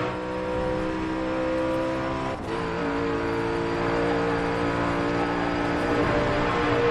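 Race car engine sound effect, a steady high-revving drone with a brief dip about two and a half seconds in, after which the pitch settles at a new level.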